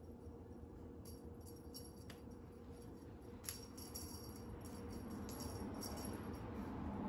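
Cat wand toy jingling and rattling in irregular shakes as it is swung on its string and batted by a cat.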